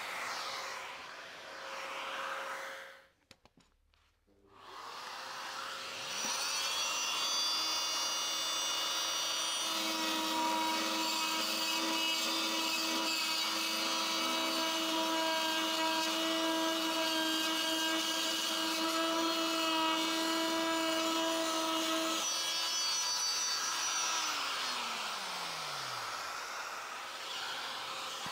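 Oscillating multi-tool with a segment blade grinding the grout out of a tile joint, giving a steady high buzz over the steady rush of a dust extractor. About 24 seconds in the tool is switched off and its pitch falls as it winds down, while the extractor keeps running. There is a brief near-silent gap about three seconds in.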